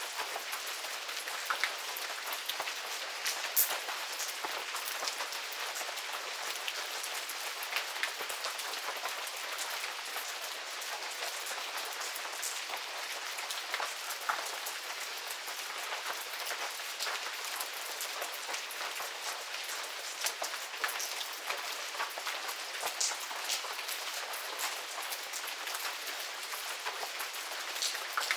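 Medium rain falling steadily in a garden: an even hiss with many individual drops pattering and ticking on surfaces, one sharper drop about three and a half seconds in.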